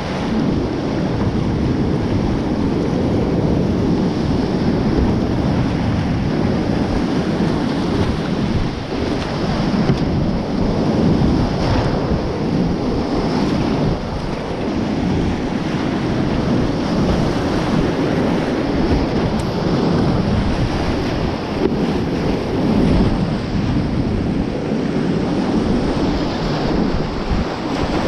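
Whitewater rapids rushing loudly and steadily around a kayak being paddled through them, heard close up with water splashing against the boat and paddle.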